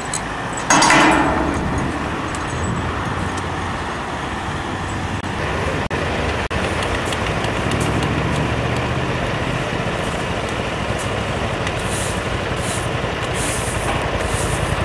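Steady running of a heavy engine, such as a truck or work machine, with one brief loud burst of noise about a second in.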